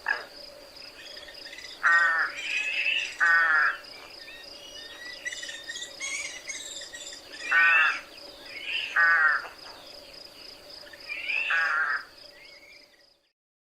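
Rook giving harsh, hoarse caws: five rasping calls, in two pairs and then a single, over fainter chirping of small birds and a steady high whine.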